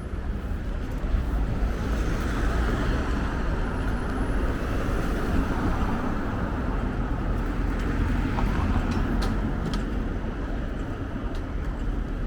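City street traffic noise: motor vehicles running past in a steady wash with a low rumble, and a few faint clicks late on.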